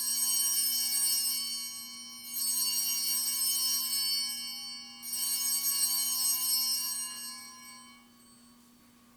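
Altar bells (a cluster of small sanctus bells) shaken in three rings, each a bright, high jangle that fades off. They mark the elevation of the chalice at the consecration.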